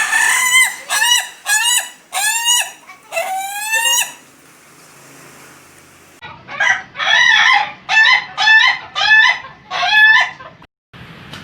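Ayam ketawa (laughing chicken) rooster crowing in its broken, laughing style. A string of about five short rising syllables is followed by a pause of about two seconds, then a quicker string of about eight syllables that stops abruptly near the end.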